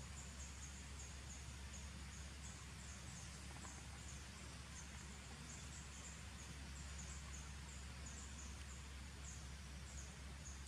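Outdoor ambience: a steady low hum and hiss, with a faint high-pitched chirp repeating every half second or so.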